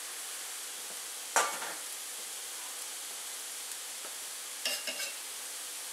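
Dry chilli flakes sizzling in hot vegetable oil with the heat off, a steady hiss. A sharp utensil knock against the pan about a second and a half in is the loudest sound, with a few lighter clinks near the end.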